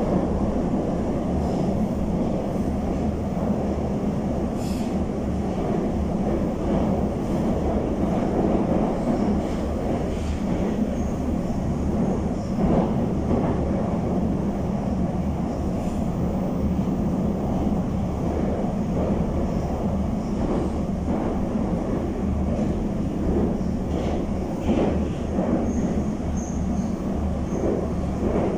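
Steady running rumble of a Moscow Metro 81-775/776/777 train, heard from inside the carriage as it runs through a tunnel: wheels on rail and running gear, with no pauses.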